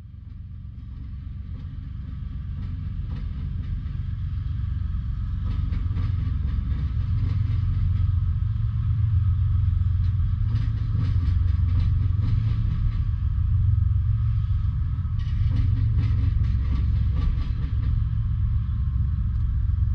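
Freight train's cars rolling past at a grade crossing: a steady low rumble with wheel clicks, swelling over the first few seconds.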